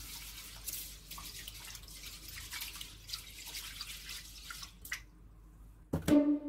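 Water dripping and trickling in a kitchen sink in irregular small drips, with a couple of louder knocks near the end.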